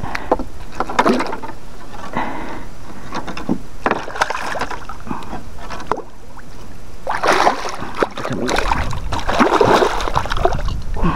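Water splashing and sloshing in irregular bursts as a hooked cachama morocoto thrashes at the surface beside a wooden canoe, with a low rumble in the last few seconds.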